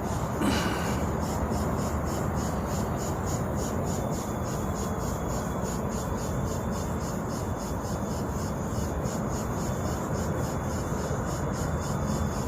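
Cricket chirping steadily at about three to four high chirps a second, over a steady low rushing noise, with a brief louder sound about half a second in.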